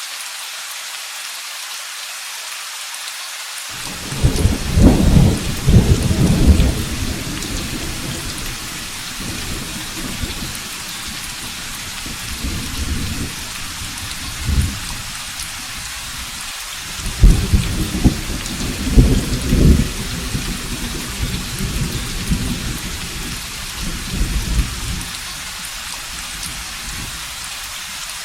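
Steady heavy rain with rolling thunder. A first loud rumble starts about four seconds in and a second, about as loud, comes just past the middle. Smaller rumbles fall between and after them, dying away near the end.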